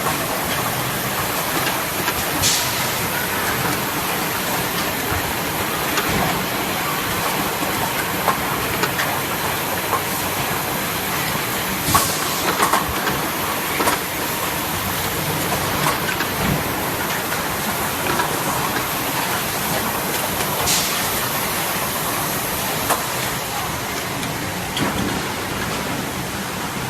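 Bottle filling and packing line machinery running, a steady mechanical noise with scattered clicks and knocks and a few short, sharp hisses, about two and a half, twelve and twenty-one seconds in.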